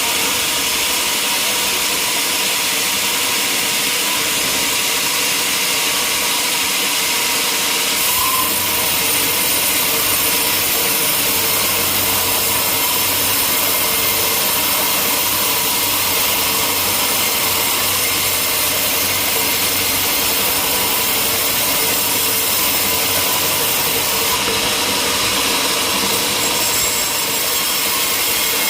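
Sawmill running: a powered saw cutting through timber, with its engine running steadily. The sound fills out about eight seconds in.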